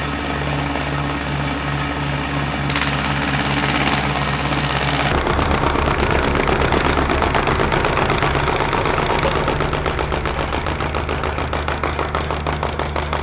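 Angle grinder fitted with a disc of spoons, spinning under power with a steady motor hum; from about five seconds in, a fast, even rattle of the spoons runs over the hum.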